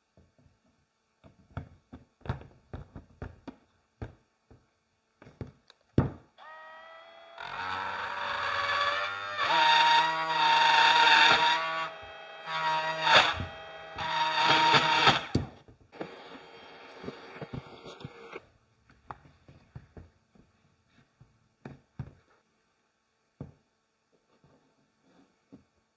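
Cordless electric pole saw motor spinning up with a rising whine, running loud for about eight seconds with its level dipping midway, then stopping. Scattered knocks and clicks of handling come before and after.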